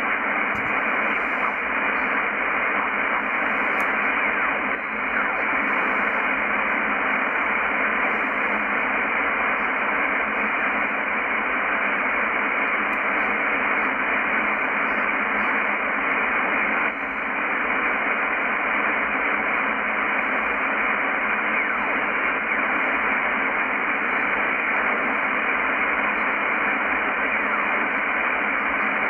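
Steady shortwave receiver hiss from a Yaesu FTdx10 in upper sideband, being tuned across the 11 MHz band with no station coming through. The static briefly dips twice, about 5 and 17 seconds in.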